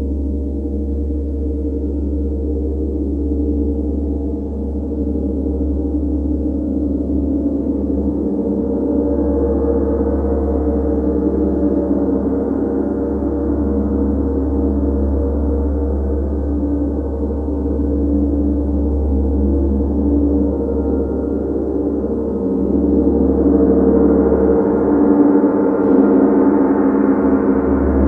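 Large chau gong (tam-tam) played with a soft mallet in a continuous wash: a dense, sustained shimmer of many overlapping tones with no single strike standing out. It swells about a third of the way in and again, louder, near the end.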